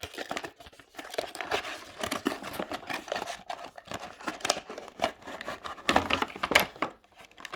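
Packaging being unwrapped and handled: continuous crinkling and rustling with many small clicks and knocks, busiest about six seconds in.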